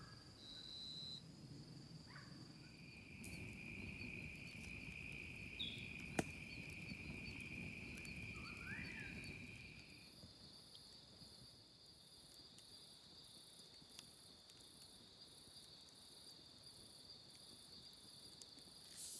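Faint evening bush ambience: insects calling in several steady, high trills, one of them running for several seconds in the first half. Two short rising chirps come about two and eight seconds in, and a single sharp click about six seconds in is the loudest moment.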